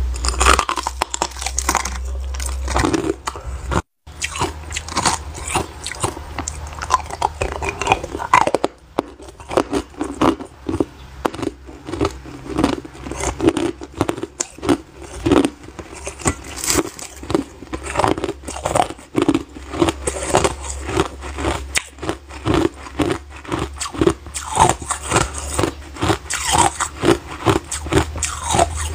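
A person biting and chewing chunks of white ice: a fast, continuous run of sharp crunches close to the microphone, broken by a brief gap about four seconds in.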